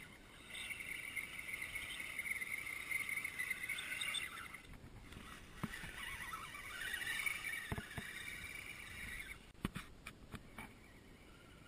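Axial Wraith RC rock crawler's electric motor and gears whining as it climbs over gravel, the pitch wavering with the throttle, with a few knocks from about the middle on. The whine stops about three-quarters of the way through.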